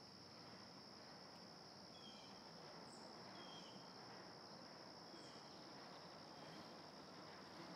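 Near silence: a steady high-pitched trill of insects, with a few short faint bird chirps about once a second.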